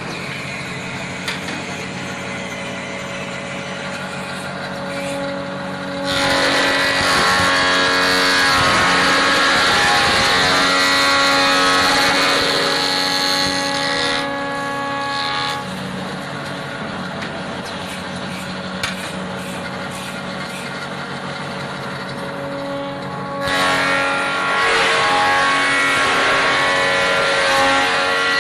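Automatic wood-turning lathe shaping wooden hammer handles: its electric motors run with a steady hum. A louder cutting noise comes in about six seconds in, eases off around fifteen seconds, and returns about twenty-three seconds in, as the cutter takes shavings off a handle blank.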